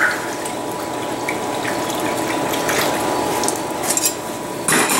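A hot forged steel spoon quenched in a bucket of water, hissing and bubbling steadily, with a short louder splash near the end.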